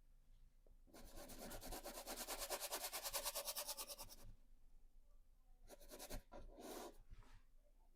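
Paintbrush scrubbing oil paint onto the painting in rapid back-and-forth strokes for about three seconds, followed by two brief strokes later.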